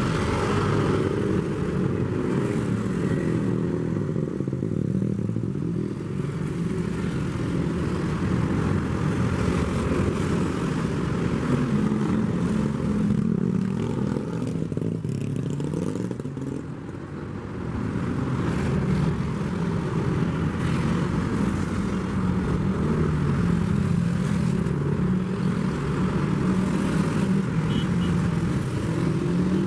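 Steady road-traffic and engine noise, motorcycles and cars among it, with a short lull a little past the middle.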